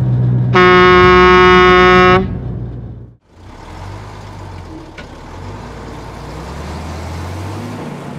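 Dump truck horn sounding one long, loud honk over a low diesel engine rumble. After a brief break, a heavy tipper truck's engine runs steadily.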